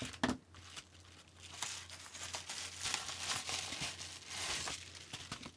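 Paper packaging crinkling and tearing as a small mail package taped up with electrical tape is handled and opened by hand, with a few sharp clicks near the start.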